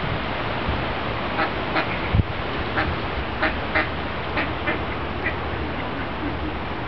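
Mallard ducks quacking: a run of about a dozen short quacks starting about one and a half seconds in and fading out after about five seconds, over steady background noise. A single low bump about two seconds in.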